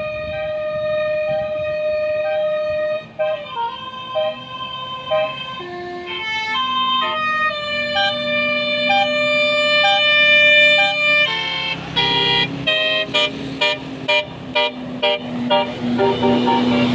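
Music: steady held notes with a short repeating figure that steps between pitches. About eleven seconds in, a rhythmic beat comes in under it.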